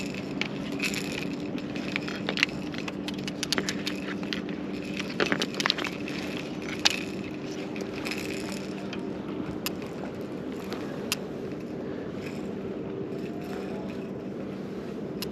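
Steady low hum of an electric trolling motor pushing the boat slowly, with scattered clicks, knocks and rattles of fishing gear being handled as baited rods are set out.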